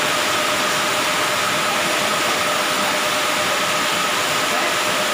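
Steady machine noise in a workshop: a motor running evenly with a hiss and a faint steady hum, unchanged throughout.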